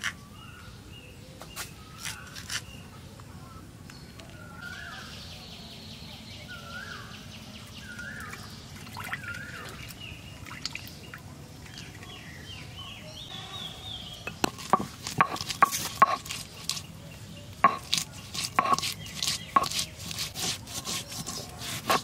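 Birds calling in the background, then about two-thirds of the way in a dense run of sharp knocks and clatters starts and carries on to the end.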